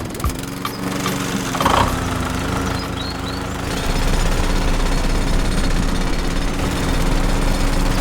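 Small motor-driven miniature DIY machine running steadily with a rapid, jackhammer-like rattle, getting louder about four seconds in.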